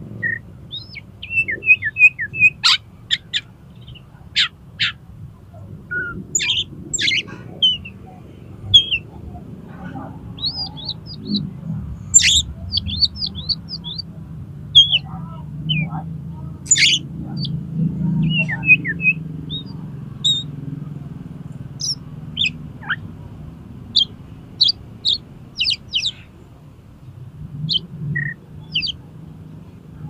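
Oriental magpie-robin (kacer) singing in the rapid, erratic 'konslet' style: short bursts of sharp chirps, quick whistled notes and trills, in irregular phrases with brief pauses between.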